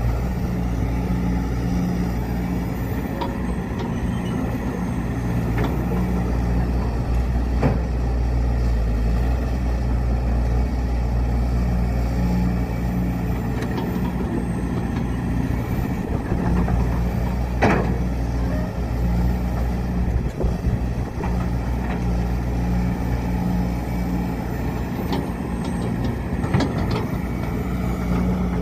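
Heavy diesel engine of an excavator running steadily while loading a truck, with a few sharp knocks and clanks scattered through it.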